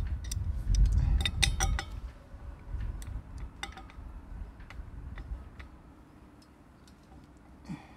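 Scattered sharp metallic clinks and taps of a large adjustable wrench being handled and fitted onto the anode at the end of a bronze propeller's shaft. The clinks are thickest in the first two seconds, over a low rumble, and thin out to a few light taps.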